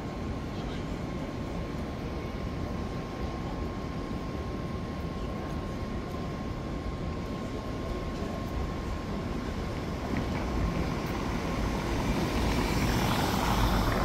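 City street ambience: a steady rumble of traffic with a thin steady tone underneath, swelling near the end as a vehicle passes close by.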